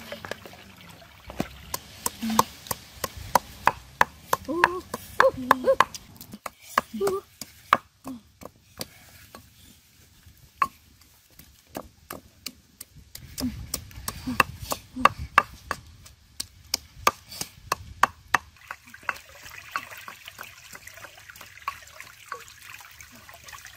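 Pestle pounding chili and garlic in a stone mortar: a string of sharp, irregular knocks, several a second, with short pauses between runs.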